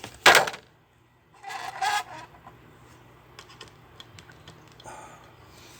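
A loud crack just after the start, then a scatter of light plastic clicks and rattles: a plastic remote-control toy car being stomped on and broken apart.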